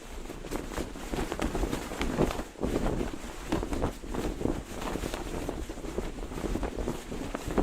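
Cloth flag flapping in the wind, with quick irregular snaps and flutters of the fabric over a low rumble of wind on the microphone.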